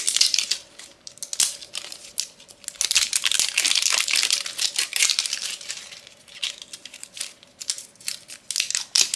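Tight plastic wrapper being peeled and torn off a metal ornament ball, crinkling and crackling unevenly with short quieter pauses.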